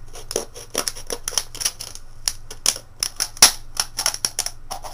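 Knife point cutting around a thin aluminium soda can, the can wall crackling and clicking irregularly, several sharp ticks a second, with one louder snap about three and a half seconds in.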